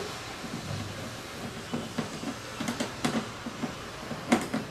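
Screwdriver and hands working at a motorcycle's plastic fairing and screws: scattered sharp clicks and knocks, two close together near the end, over a steady low hum.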